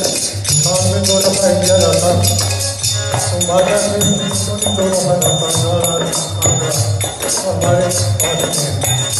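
A man singing into a microphone, his voice amplified, over a jingling hand percussion such as a tambourine keeping a steady beat.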